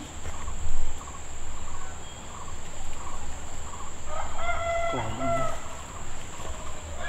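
A rooster crowing once, about four seconds in, over a steady high-pitched insect drone. A brief low thump comes under a second in.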